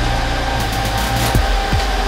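Dell R710 server's cooling fans running at full speed, a loud steady whir with a constant whine: with the case cover off, the fans stay maxed out, or "angry", until the cover is back on.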